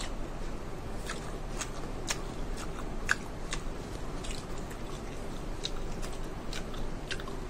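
A person chewing a mouthful of mozzarella corn dog, with sharp wet mouth clicks at irregular intervals.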